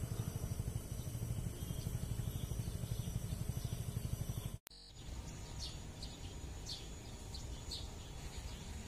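A loud low rumble cuts off abruptly about halfway. Quieter outdoor ambience follows, with a small bird chirping repeatedly in short, high notes.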